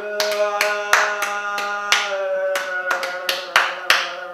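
Hand claps keeping a steady beat, about three a second, with voices holding a long note underneath.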